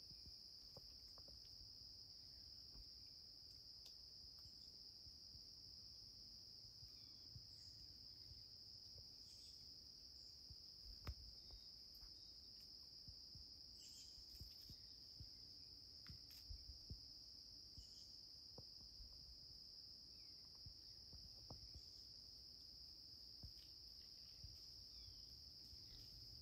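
Faint, steady, high-pitched insect chorus trilling without pause, with a few faint scattered clicks, the clearest about eleven seconds in.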